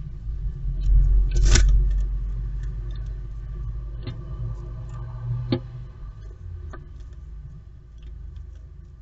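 A blue tit moving about inside a wooden nest box: a low rumble from the box with a few sharp taps and scratches of its claws on the wood. The loudest tap comes about one and a half seconds in, and softer ones follow a few seconds later.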